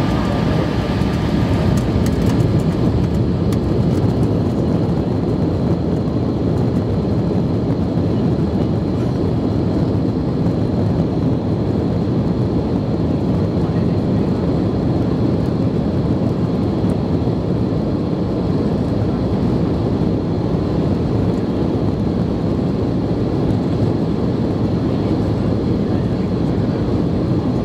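Cabin noise inside an Embraer 170 moving along the runway: a loud, steady rumble from its two CF34 turbofan engines and the rolling airframe, with a faint steady high whine.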